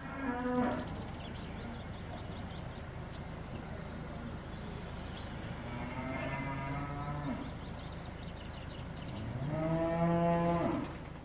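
Cow mooing three times: a short moo at the start, a longer one about six seconds in, and the loudest near the end, over steady background hiss.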